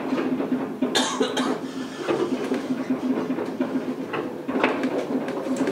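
Chiba Urban Monorail 1000 series suspended monorail car running, heard from inside: a steady low hum with irregular knocks and rattles. A short, sharp noise stands out about a second in.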